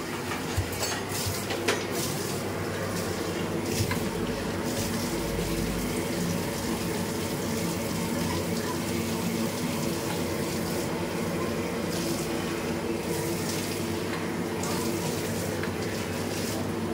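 Steady rushing noise over a low, even machine hum in a commercial kitchen, with a few sharp metal clinks in the first four seconds.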